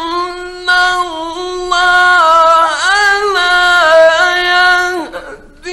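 A man's voice reciting the Quran in the melodic tajweed style, drawing out long held notes with ornamented turns in pitch, briefly breaking twice in the first two seconds and trailing off about five seconds in. It is an old 1950s recording.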